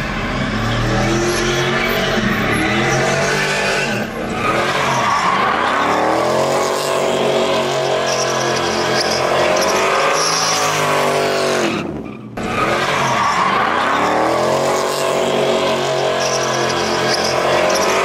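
Pickup truck doing donuts: the engine revs hard and rises and falls over and over while the rear tyres squeal and spin, with brief lifts off the throttle about four seconds in and again about twelve seconds in.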